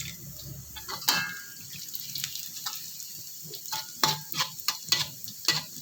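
Sliced garlic, shallots and bird's-eye chillies frying in plenty of hot oil in a wok: irregular crackles and pops of spattering oil over a faint sizzle.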